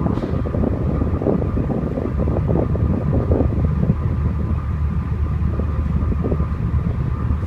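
Steady low rumble of a vessel's running machinery, with a constant hum and a faint steady higher tone, and some wind buffeting on the microphone.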